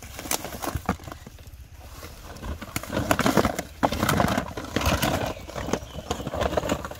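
A large cardboard box being handled and tipped over, with a pile of small cardboard phone boxes tumbling out and knocking together onto the ground; the clatter is loudest about three to five seconds in.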